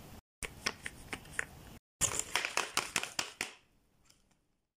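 Folded-paper dragon puppet's jaws clacking shut and its paper crinkling: a run of quick sharp clicks, twice broken by abrupt cuts to silence, fading out near the end.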